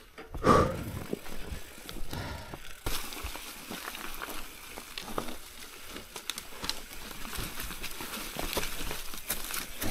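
Mountain bike rolling downhill over a dry-leaf and dirt forest trail: tyres crunching through leaves, with quick rattling clicks from the bike over the ground. About half a second in there is a short loud pitched sound, the loudest moment.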